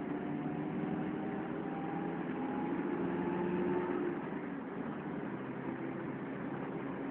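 Inside the cab of a Toyota pickup rolling down the road in neutral: a steady engine hum under road noise, with a faint whine that climbs slowly in pitch for about four seconds, then eases off.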